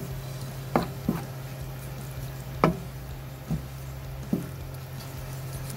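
Young coconut strips being stirred in coconut milk in a non-stick pan, with the spatula knocking against the pan about five times over a steady low hum.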